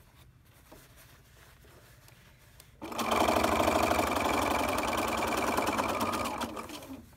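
Electric domestic sewing machine stitching fast along a fabric edge. It starts about three seconds in, runs steadily at speed for about three seconds and slows to a stop near the end.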